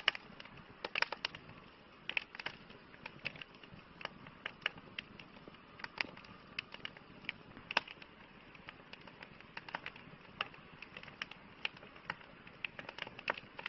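Wood fire crackling: irregular sharp pops and snaps over a soft steady hiss.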